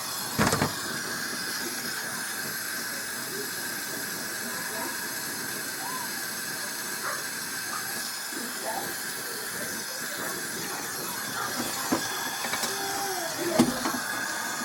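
Gas brazing torch flame hissing steadily while copper-to-steel refrigerator tube joints are silver-soldered. There is a sharp knock about half a second in and another near the end.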